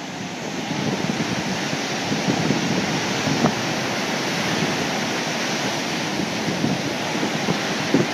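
Water pouring through a reservoir spillway and churning in whitewater below: a steady, loud rushing roar.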